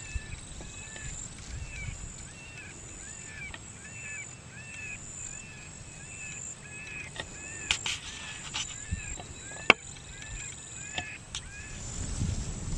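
Predator call playing an animal distress sound: a steady series of short, wavering cries repeated about twice a second, fading out near the end, used to lure coyotes in. A couple of sharp clicks sound about eight and ten seconds in.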